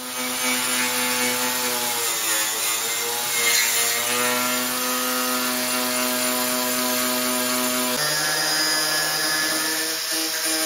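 Cordless angle grinder running with a steady whine, grinding the rusted steel of a car's door sill and throwing sparks. Its pitch sags briefly a couple of seconds in, then comes back up. Near the end the pitch changes abruptly to a new steady note.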